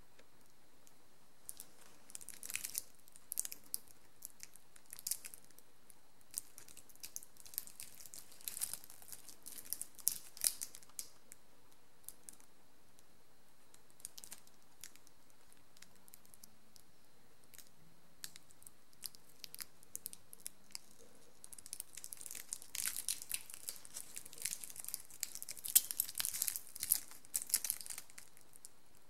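Thin protective plastic film on a watch bracelet crinkling and tearing as it is handled and peeled off, in scattered bursts of sharp crackles with a lull midway, densest and loudest near the end.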